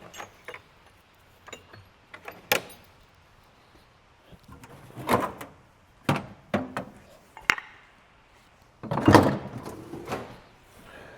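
Hand tools and metal parts of an old sawmill lumber gauge being handled during disassembly: scattered knocks and clanks, with longer scraping rattles about five seconds in and, loudest, about nine seconds in.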